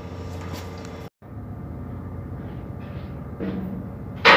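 Steady low hum of a ship's machinery, cutting out for a moment about a second in. A single sharp, loud knock comes near the end.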